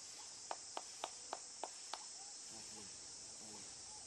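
Steady high-pitched drone of an insect chorus, with a quick run of six sharp ticks, about three a second, beginning about half a second in.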